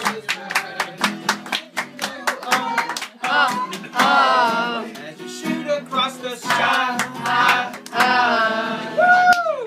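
Group sing-along: voices singing over music, with hands clapping in a steady rhythm.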